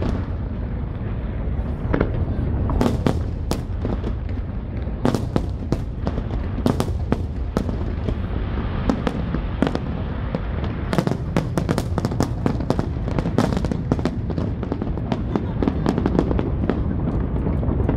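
Fireworks display: a continuous rumble of shell bursts with many sharp cracks and crackles. The cracks come thickest from about eleven to fourteen seconds in.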